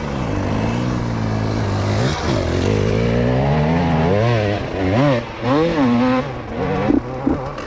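Enduro dirt bike engine, running at a steady pitch for about two seconds, then revving up and down repeatedly as the bike is ridden, turning choppy near the end.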